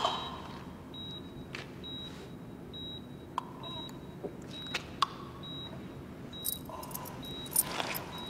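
Patient heart monitor beeping steadily, one short high beep a little under once a second, with scattered clicks and knocks. The steady rhythm marks a sedated captive's heartbeat under a heavy drug dose.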